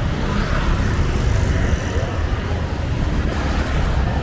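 Street traffic noise: a steady low rumble of vehicle engines and tyres going past.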